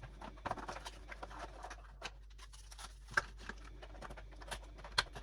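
Light rustling with irregular small clicks and taps, a few sharper ticks among them: things being handled close by.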